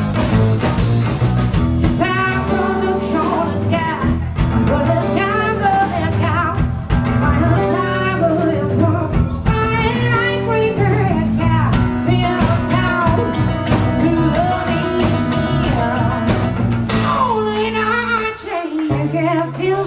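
Live rock band playing a song: acoustic and electric guitars, electric bass and a drum kit, with a melody line over them. The low end thins out briefly near the end.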